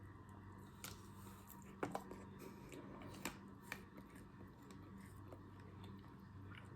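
Close-miked mouth sounds of someone eating chocolate-covered fruit: a few sharp crunches and clicks as the hard chocolate shell is bitten and chewed, the loudest about two seconds in and another near the middle, over a faint steady low hum.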